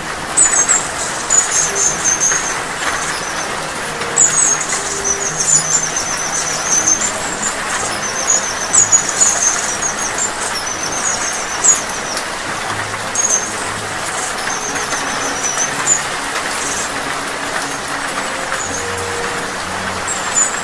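A hummingbird singing in steady rain: short, very high, thin twittering trills repeat every second or two over an even hiss of rainfall.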